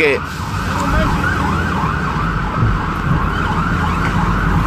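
Emergency vehicle siren in a fast yelp, its rising wail repeating about two to three times a second. Under it is the low rumble of a moving vehicle, heard from inside its cabin.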